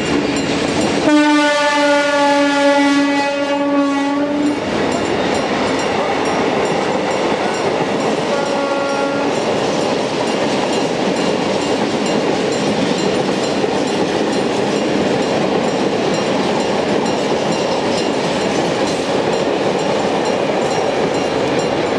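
Freight train hauled by MLW diesel locomotives passing close by at speed: the locomotive horn sounds one long blast of about three seconds starting a second in, and a short blast around eight seconds in. After that, the wagons' wheels roll past in a steady, even noise.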